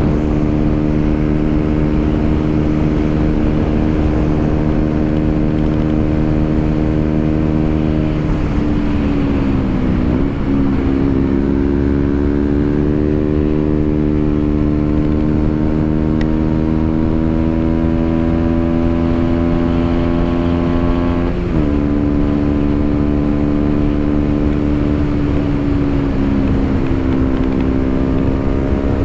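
KTM Duke 125's single-cylinder engine under way. It runs at a steady pitch, dips briefly about nine seconds in, then rises slowly for about ten seconds as the bike pulls in gear, drops sharply about two thirds of the way through, and runs steady again.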